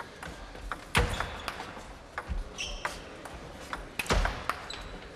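Table tennis rally: the celluloid ball clicks off the rackets and table in quick uneven strokes, some hits heavier with a low thud. A few short high squeaks come in the middle and near the end.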